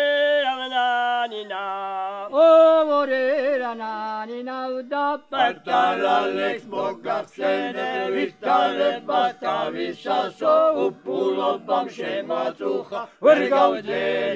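Elderly men singing a Georgian folk song unaccompanied: a lead voice opens with long held, gliding notes, and about five seconds in the other men's voices join in parts.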